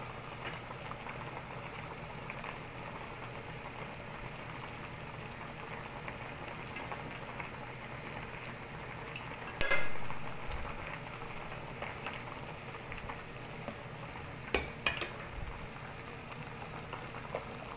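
Pot of soup at a rolling boil, a steady bubbling hiss. A single sharp knock about ten seconds in and a few lighter clicks near fifteen seconds stand out above it.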